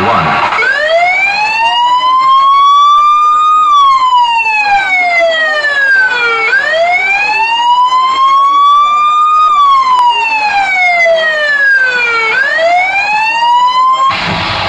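Wailing siren, its pitch rising slowly for about three seconds and falling for about three, two and a half times over, then cutting off abruptly near the end.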